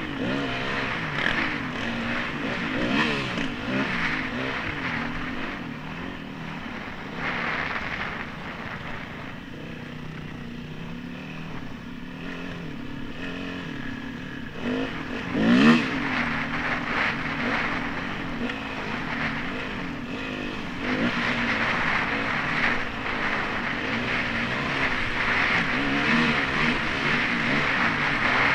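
Yamaha WR250 single-cylinder four-stroke dirt bike engine, heard from the rider's helmet, its revs rising and falling as it is ridden over sand. It eases off for a few seconds and then climbs to its loudest, sharp rev about halfway through. Wind noise on the microphone grows heavier near the end.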